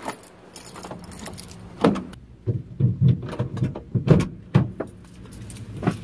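Keys jangling and a run of short knocks and thumps as someone gets into a car and settles into the front seat.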